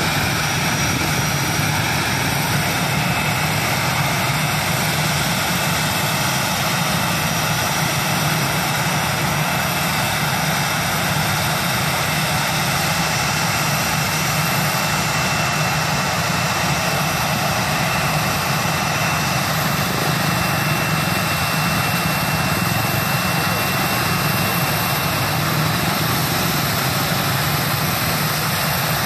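Airbus A320 jet engines running steadily on the runway: a constant rumble with a thin, steady high whine.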